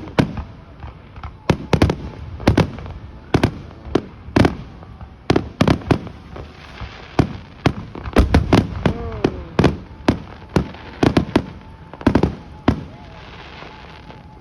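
Fireworks going off in a dense, irregular barrage of sharp bangs, several close together at a time. The bangs stop near the end.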